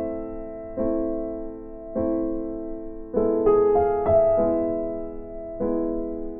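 Background music: slow, soft chords on a piano-like keyboard, a new chord struck roughly every second and left to ring and fade.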